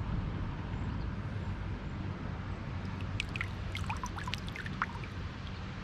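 Shallow creek water trickling, with a flurry of small splashes and drips in the middle seconds.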